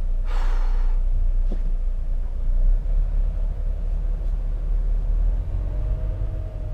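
Volvo FH truck's diesel engine rumbling at crawling speed, heard from inside the cab, with a short hiss about half a second in.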